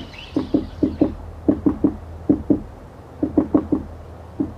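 Repeated knocking on a hard surface, in quick groups of two to four knocks with short pauses between, each knock with a brief ring.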